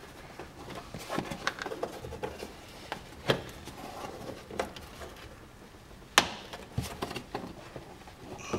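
Plastic body trim and its retaining clips being pulled and worked loose by hand: scattered clicks and knocks, the loudest about three seconds in and about six seconds in, as the clips pop and the panel is prised free.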